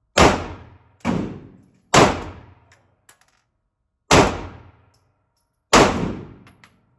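Five 9mm pistol shots from a Springfield Hellcat Pro, fired at an uneven pace, each followed by a long echoing decay.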